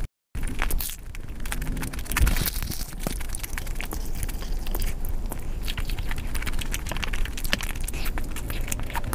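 Eating sounds: puri being torn and dipped in meat curry, then biting and chewing, with many small wet clicks and crackles. The sound drops out to silence for a moment right at the start.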